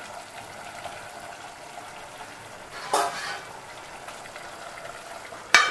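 Chicken gravy thinned with milk and hot water simmering in a pot, a steady soft bubbling. A brief rasping noise comes about three seconds in, and a sharp metal clink near the end as the lid is set on the pot.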